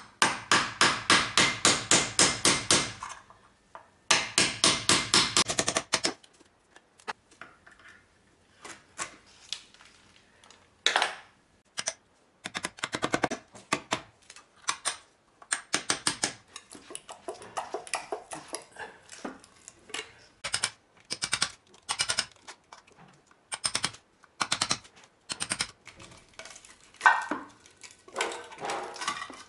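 Hammer driving a chisel into the wall around an old switch back box to chip out the plaster. There are two quick runs of sharp blows, about four a second, in the first six seconds, then scattered single knocks and taps.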